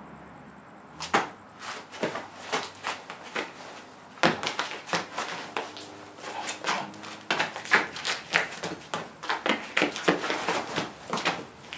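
An irregular run of sharp knocks, scuffs and swishes, a few a second, from a person moving through sword moves and footwork. It starts about a second in and briefly lets up just before the middle.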